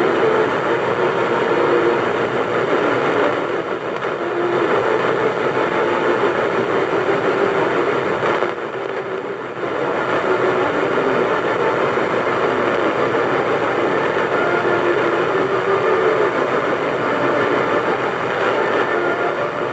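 AM radio static from a Sony Psyc boombox tuned to 1450, a dense steady hiss from distant thunderstorm lightning, with the signal fading down twice and coming back.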